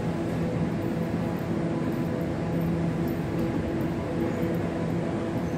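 Class 345 electric train standing at the platform with its doors open, humming steadily with a few low tones that swell and fade slightly.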